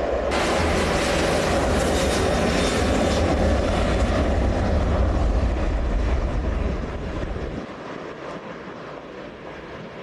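Jet airliner engines running at high power as the aircraft rolls down the runway: a loud, dense rumble that drops away about seven seconds in as it moves off.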